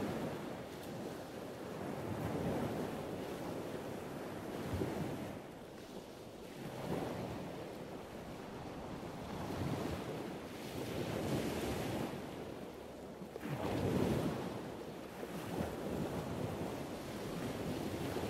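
Wind rushing over the microphone of a moving ride-along camera, a steady noise that swells and eases every few seconds.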